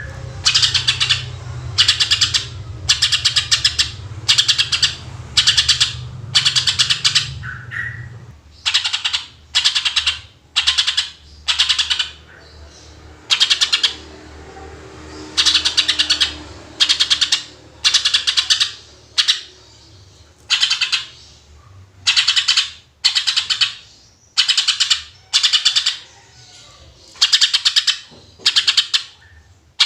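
Green leafbird (cucak ijo) singing in loud, rapid trilled bursts, about one a second, each a fast rattle of notes. A low steady hum runs underneath and stops about eight seconds in.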